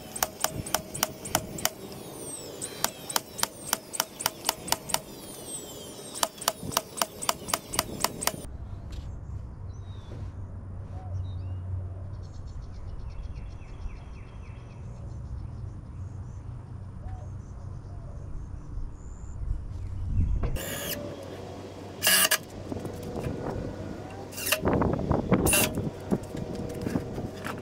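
Cordless nail gun firing in quick runs of about four or five nails a second, driving nails into pine boards. After that comes a quieter stretch of outdoor background with a low hum, and in the last third plywood panels are knocked and shifted with loud thumps.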